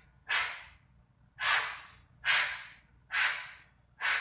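Short hissing puffs of rushing air, five in a row at about one a second, each starting sharply and dying away within half a second.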